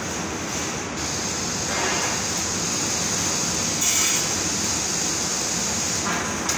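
Steady industrial noise of a metal fabrication shop: machinery and ventilation running, with a brief louder hiss about four seconds in.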